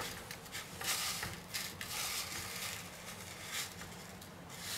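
Chocolate sprinkles rustling and scraping in a stainless steel tray as a rum ball is rolled through them with gloved hands, in short soft bursts.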